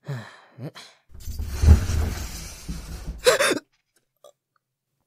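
Short breaths, then a sliding closet door rumbling open for about two seconds, ending in a man's sharp gasp.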